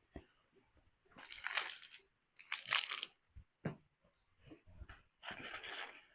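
Plastic and cardboard packaging rustling and crinkling in bursts as a headlight kit is unpacked and handled, with a few light clicks and knocks.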